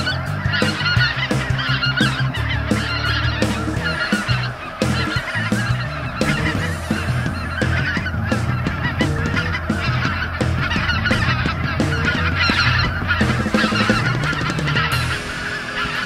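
A large flock of snow geese calling overhead: a dense, continuous chorus of high honks and yelps with no breaks.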